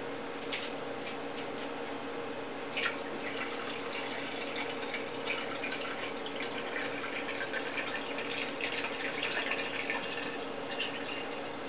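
Pineapple juice pouring from a can into a blender jar, a steady trickle of liquid, with a sharp click about three seconds in.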